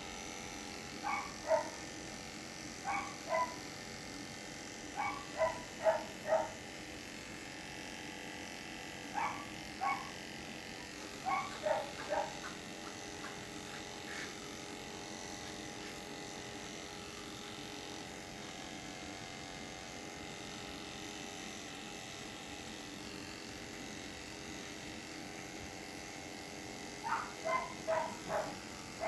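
Corded electric animal clippers running steadily while shaving a small dog's belly fur, with the dog giving short yips in clusters of two or three several times in the first dozen seconds and again near the end.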